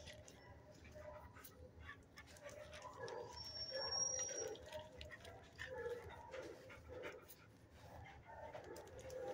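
Dogs whining and giving short muffled vocal sounds, faint and irregular, with a thin high squeal about three and a half seconds in.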